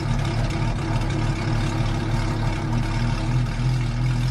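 Mazda RX-7 rotary engine idling steadily, with a low, even hum.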